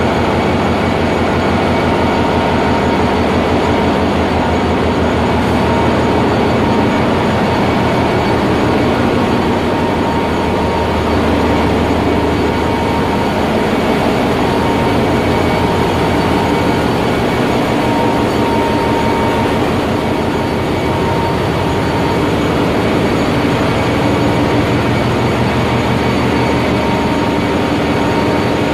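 Container ship's engine room machinery running at sea: a loud, steady din of diesel engines and auxiliary plant, with a fast even beat and a steady high whine. This is the normal sound of the plant in operation.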